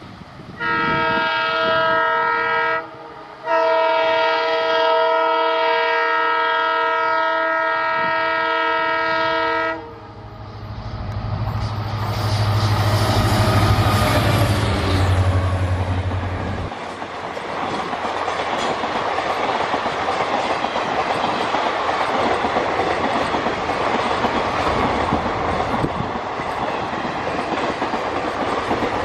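EMD WDP-4 diesel locomotive sounding its multi-note horn, a short blast and then a long blast of about six seconds. The locomotive then passes close with a deep engine rumble, loudest about two seconds later. Passenger coaches follow, clattering over the rail joints.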